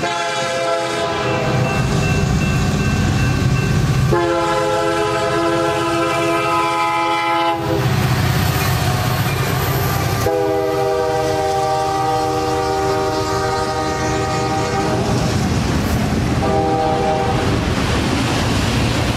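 A freight train's diesel locomotive air horn sounds a multi-note chord in repeated blasts for a grade crossing: two long blasts, a pause while the locomotives rumble past close by, another long blast, a short one, and a further blast starting near the end. The train's heavy rumble and wheel clatter run underneath throughout.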